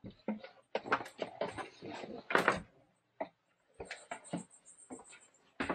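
Irregular soft knocks, clicks and rustles of people moving about in a small boat cabin, with a louder rustle about two and a half seconds in.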